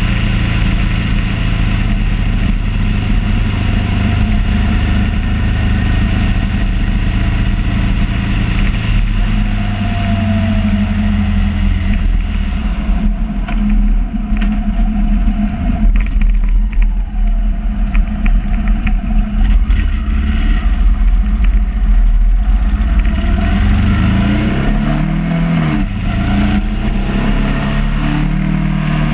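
Motorcycle engine running at road speed, with wind rushing across the microphone. The engine note sags about a third of the way in and climbs quickly again near the end as the rider accelerates.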